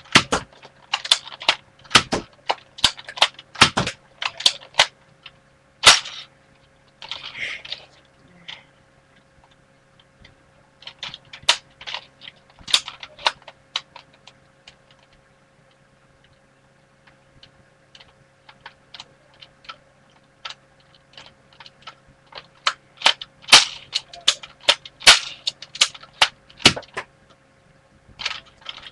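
Plastic clicks and clatter of a toy dart blaster being handled, a run of sharp, irregular clicks, at times two or three a second, coming in clusters and thickest near the end, over a faint steady hum.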